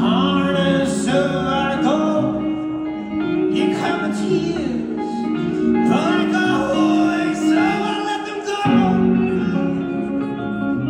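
Live acoustic guitar fingerpicking with a male voice singing over it, its pitch gliding between held notes.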